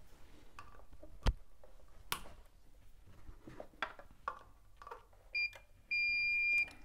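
An electrical installation tester's continuity buzzer beeps as a test probe touches an earthed point: a short beep and then a steady beep of nearly a second near the end, signalling low-resistance earth (CPC) continuity. Before it, light handling clicks and one sharp click about a second in as the probe is worked at the switch.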